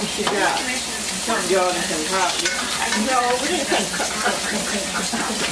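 Food frying and sizzling in a pan on a kitchen stove, a steady hiss, with low voices talking over it.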